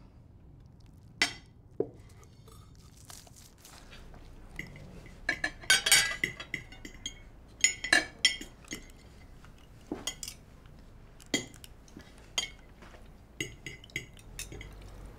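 Knives and forks clinking and scraping on china plates during a meal, in scattered sharp clinks with a busier run of them about six seconds in.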